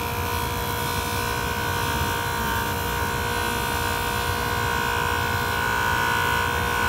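Jooltool rotary polisher running steadily with a felt polishing wheel, a stainless steel watch clasp held against it to bring it to a high polish. It makes a steady motor hum with a high whine that grows a little louder near the end.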